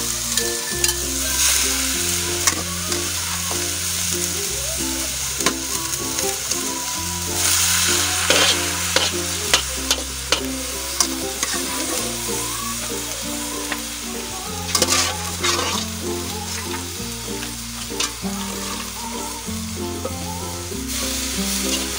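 Okra, onion and shredded bamboo shoots sizzling in oil in an aluminium wok, with a metal spatula scraping and clinking against the pan as they are stirred. The sizzling swells about seven seconds in. Soft background music with slowly changing low notes plays underneath.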